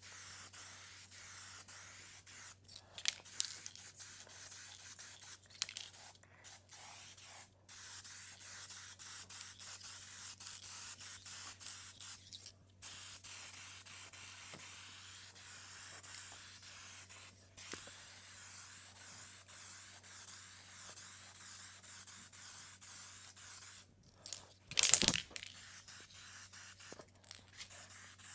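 Aerosol spray can laying clear coat on a car door: a steady hiss in passes, stopping briefly between them. A brief louder sound comes near the end.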